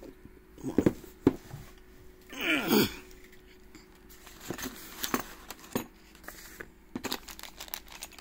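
Board-game components being handled: a few knocks of cardboard early on, then light crinkling of small plastic bags with scattered ticks. A brief falling murmur from a voice about two and a half seconds in.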